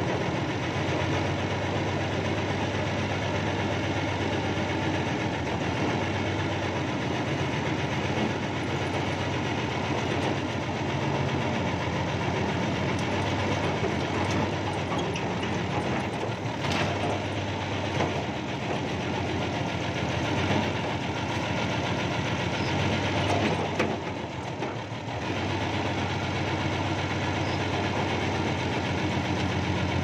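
Backhoe's diesel engine running steadily, heard from the operator's cab, with a short dip in level about three-quarters of the way through.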